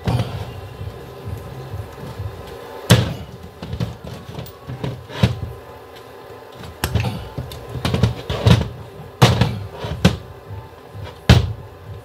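Metal clicks and knocks from a Haldex coupling housing and its hydraulic pistons being handled and worked in their bores by hand. About eight sharp knocks, irregularly spaced.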